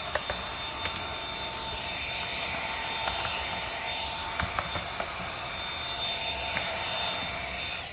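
Dyson V7 cordless vacuum running steadily in handheld mode with its soft brush tool: a high motor whine over the rush of air, with a few light clicks as the brush works over laptop keys. It cuts off just before the end.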